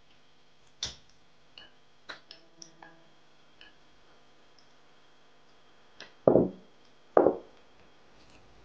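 Chopsticks clicking and tapping against a bowl and the rim of an aluminium soup pot as meat slices are pushed into the soup and stirred. About six and seven seconds in come two louder, duller knocks.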